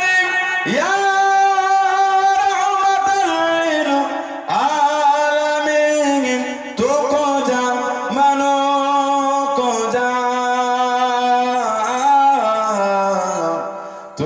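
A man singing an Islamic gazal into a microphone in long, drawn-out, ornamented phrases, his voice gliding between held notes. The phrases break for short breaths about four and seven seconds in, and the last one fades near the end.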